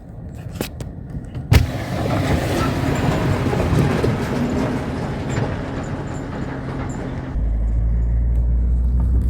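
A car on the move, with engine and road noise. There is a sharp knock about one and a half seconds in, and a deeper, heavier rumble sets in a little after seven seconds.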